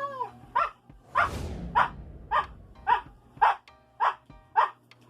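Siberian husky barking single, evenly spaced barks about twice a second, counting out the number 11 for the letter K. The tail of a drawn-out howling call ends right at the start, and a short breathy rush comes about a second in.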